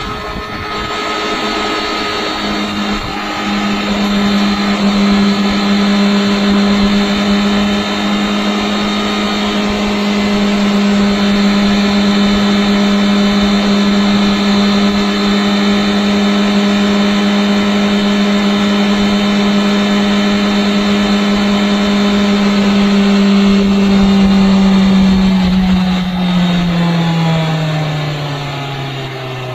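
Honda CBR650R inline-four motorcycle engine running at steady high revs while riding, its note held level for most of the stretch. Over the last five seconds or so the revs fall away smoothly as the bike rolls off and slows.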